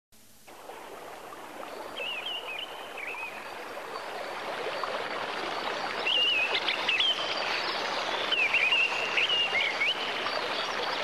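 Running water with birds chirping, fading in: a nature-sound backdrop, with three short bursts of warbling birdsong over the steady rush of the water.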